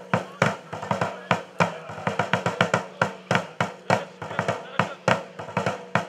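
Military side drum beaten in a steady march rhythm, about three sharp strokes a second with occasional doubled strokes.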